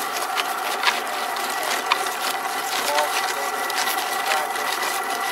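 Homemade charcoal grinder running, its drive giving a steady whine, with a few sharp clicks scattered through.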